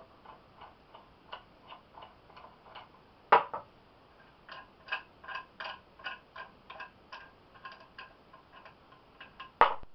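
Light, uneven clicking and ticking, a few ticks a second, with two louder sharp clicks about three seconds in and near the end, as the rig's thumb screws are loosened and taken out.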